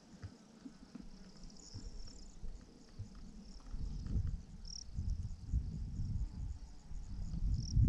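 Meadow insects chirping in a steady, high-pitched pulsing chorus. From about halfway through, an irregular low rumble of wind buffeting the microphone builds up and becomes the loudest sound.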